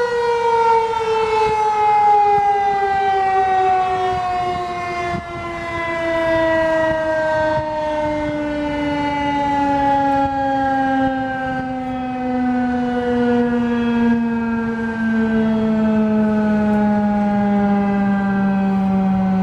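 Federal Signal 2001-SRNB outdoor warning siren winding down at the end of its one-minute alert, its tone falling slowly and steadily in pitch as the rotor coasts to a stop.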